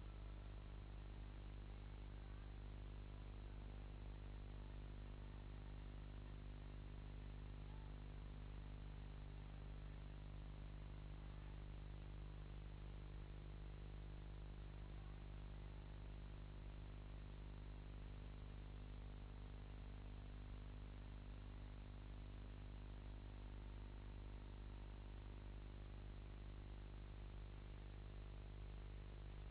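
Steady electrical hum with a faint high whine over hiss, unchanging throughout: the noise floor of a silent film transfer, with no sound from the scene itself.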